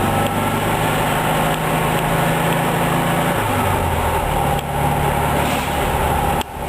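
1964 Volkswagen Beetle's air-cooled 1600 cc flat-four engine running while driving, heard from inside the cabin, its exhaust leak freshly fixed. The engine note changes pitch a few times, with a brief drop in loudness near the end.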